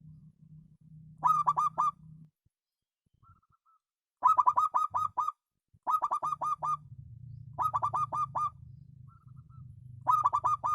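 Zebra dove (perkutut) cooing: five bursts of rapid staccato coos, each about a second long, with a few soft short notes between them. A faint low hum runs underneath.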